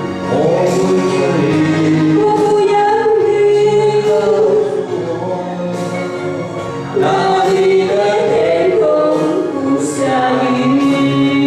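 Singing over instrumental accompaniment, with long held notes.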